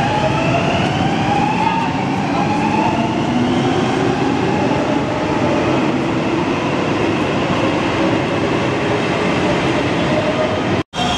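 Helsinki Metro electric train pulling out of the station: the traction motors whine, rising in pitch over the first few seconds as it accelerates, over a steady rumble of wheels on rail.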